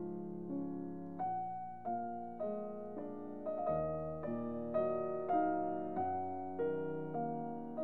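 Background piano music: notes and chords struck at an even pace of a little under two a second, each dying away before the next.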